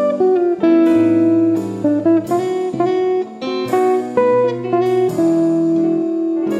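Background music: an instrumental guitar tune, plucked notes striking and ringing away one after another in a melody.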